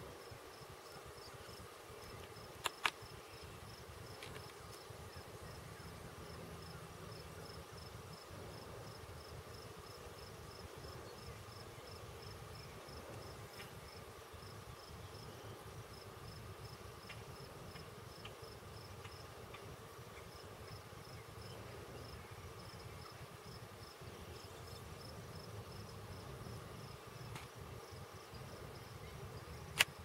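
A cricket chirping steadily in a fast, even rhythm, a few high-pitched chirps a second, with brief pauses. Two sharp ticks about three seconds in.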